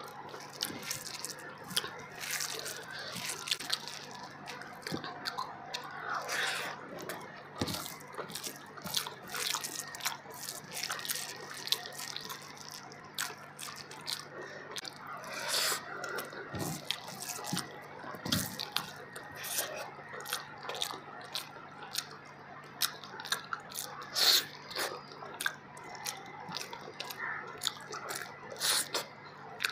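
Close-up eating sounds of fish biryani eaten by hand: irregular wet smacking and chewing clicks, with the squish of rice being pressed together in the fingers.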